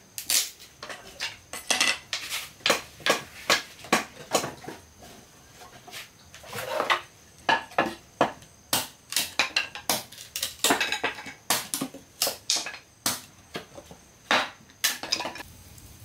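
Irregular clinks and clatters of dishes and metal utensils being handled, many short sharp knocks, some ringing briefly.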